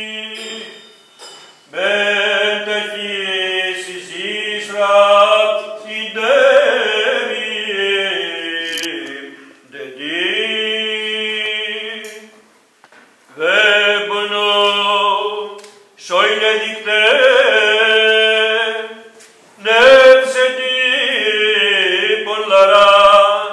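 A single male voice chanting the Gospel reading of an Orthodox Paschal vespers, intoned rather than spoken, in long held phrases with short breaks between them.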